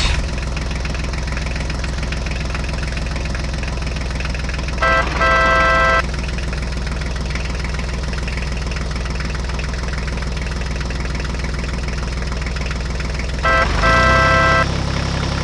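Tractor engine idling steadily. Twice, about five and thirteen and a half seconds in, a short steady pitched tone sounds over it for about a second.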